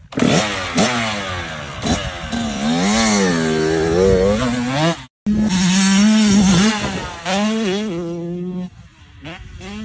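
Kawasaki KX85 two-stroke single-cylinder dirt bike engine revving in quick sharp blips, then running with its pitch rising and falling as the bike is ridden, growing fainter near the end.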